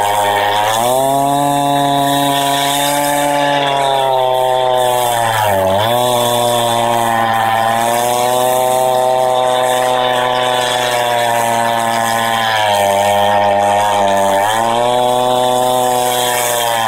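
Husqvarna 390XP two-stroke chainsaw with a 28-inch bar and ripping chain running at high revs, ripping lengthwise through a Douglas fir log. Its engine pitch rises about a second in, dips sharply once and recovers around six seconds, then drops and climbs again near the end as the load on the cut changes.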